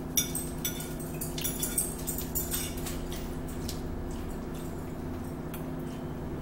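Forks clicking and scraping against plates as two people eat, the clinks mostly in the first few seconds, over a steady low hum.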